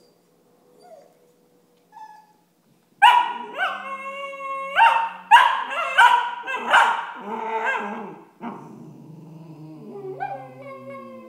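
Two Tibetan terrier puppies squabbling: a few faint whimpers, then about three seconds in a quick run of loud, rising yips and yowls, settling near the end into one long drawn-out whine. It is one puppy's whining complaint and the other's objection to it.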